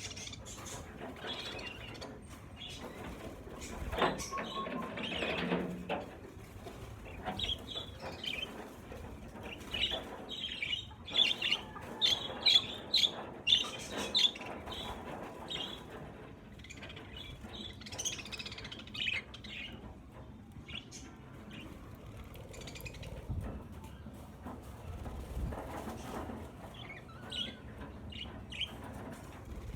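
A flock of budgerigars chirping in short, high calls, with wing flapping and a louder rustling burst about four seconds in. The chirping is densest and loudest from about ten to fourteen seconds in.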